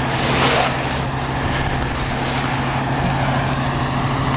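A vehicle engine idling with a steady low hum, under a constant wash of street noise.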